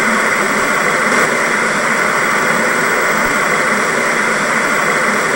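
Television static: a steady, loud hiss of white noise.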